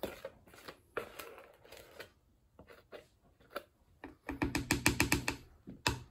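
Rubber spatula scraping and knocking against a plastic mixing bowl, clearing out thick brownie batter: scattered clicks and scrapes, then about four seconds in a second-long run of rapid, buzzing pitched scraping.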